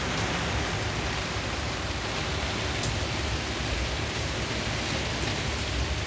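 Heavy rain pouring down in a strong gale, a steady rushing hiss with an uneven low rumble of wind gusts on the microphone.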